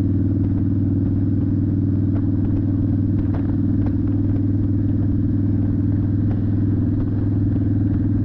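2011 Victory Vegas Zach Ness edition's V-twin running through a Bassani Pro Street turnout exhaust, held at a steady cruise with no revving.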